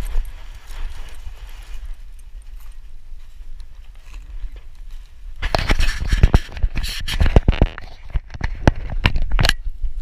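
Scraping, rubbing and clicking of a chest-mounted action camera against a dog's fur and harness straps as the dog moves, over a low rumble; from about five seconds in it turns into a dense run of sharp clicks and scrapes.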